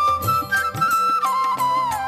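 Background music: a held, bending melody line over a steady drum beat.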